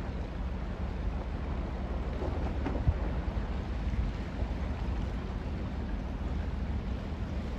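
Lake freighter breaking through canal ice: a steady low rumble of ice being pushed and ground along the hull, with wind buffeting the microphone. A single sharp knock about three seconds in, likely an ice slab cracking against the bow.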